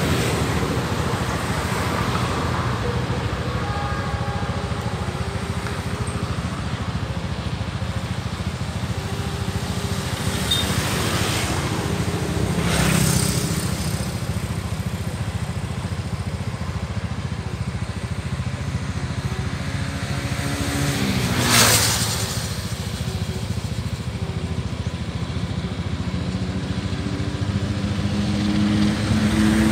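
Steady low rumble with motor vehicles passing close by. One goes past about 21 seconds in, its engine note falling as it passes. Another engine grows louder near the end.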